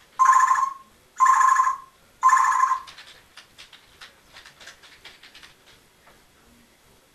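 Congo African grey parrot giving three loud, beep-like calls about a second apart, then soft clicks and quiet chatter.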